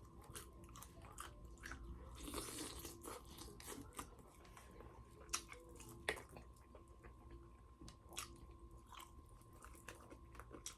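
Faint close-up chewing of crispy fried chicken, with scattered crunches of the breaded crust and a couple of sharper crunches about five and six seconds in.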